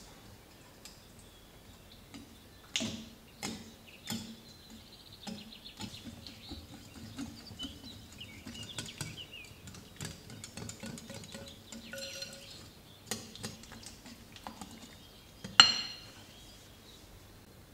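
Kitchen utensils knocking, scraping and clinking against dishes at an uneven pace, with a sharp ringing clink about three seconds in and the loudest one near the end.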